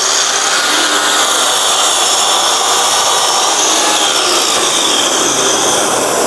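Festool Kapex KS 60 sliding compound mitre saw running at full speed, loud and steady, its blade cutting a 45-degree mitre through a softwood board.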